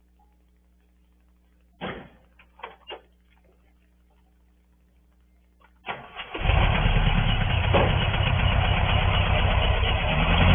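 A few short knocks about two seconds in, then about six seconds in a compressor starts up and runs loudly and steadily with a fast low chugging.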